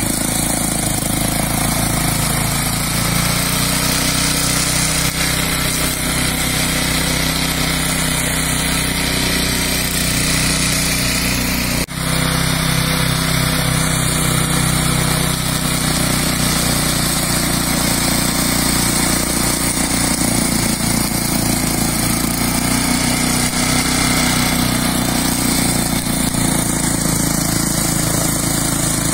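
Engine of a radio-controlled lawn mower running steadily as the mower cuts through long grass, with a brief drop about twelve seconds in.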